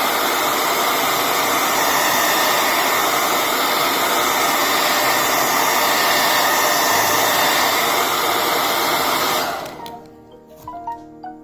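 Hair dryer blowing hot air onto a phone's back glass to soften the adhesive, a loud, steady rush that is switched off about nine and a half seconds in. Soft piano music follows.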